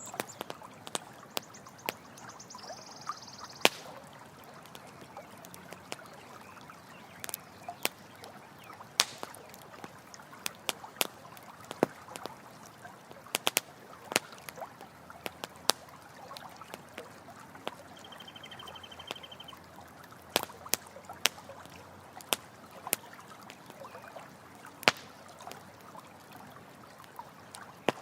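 Campfire crackling, with sharp pops at irregular intervals, over the steady rush of a flowing stream. Twice, briefly, a high thin trill sounds over it.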